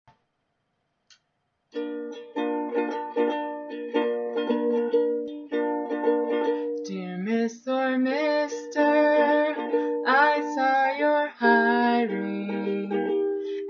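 A ukulele strummed in a steady chord rhythm, starting about two seconds in. About seven seconds in, a woman's voice begins singing along over the strumming.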